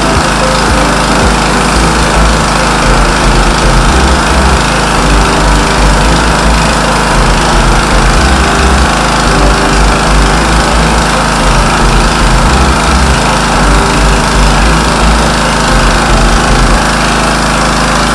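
SNIRREX 3000 petrol generator running steadily under load while a stick-welding arc from an inverter welder crackles and hisses without a break.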